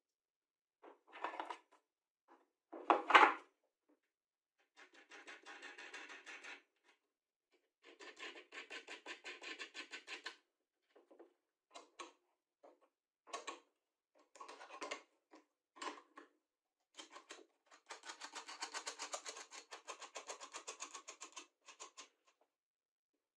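Steel bolts and nuts being set into a plywood jointer table and turned down with a wrench: metal-on-metal clinks and knocks, the loudest about three seconds in, and several stretches of rapid ticking as the nuts are run along the bolt threads.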